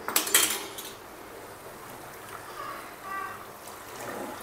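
A steel tumbler clinks against a pot a few times near the start, then water is poured from it into the chicken curry to make the gravy, a steady pouring sound.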